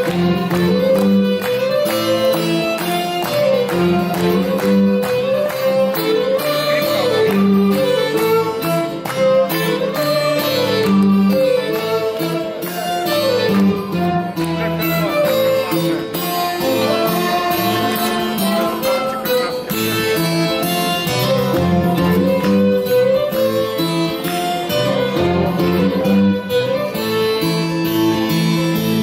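Instrumental break of a live acoustic rock song: guitars strum chords under a violin playing the melody line, with notes sliding into one another.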